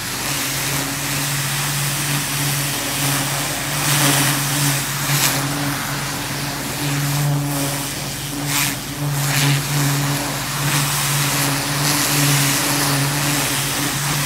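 Pressure washer running with a steady low hum under the loud hiss of its high-pressure jet driving into soil and weed roots. The hiss swells now and then as the wand sweeps across the ground.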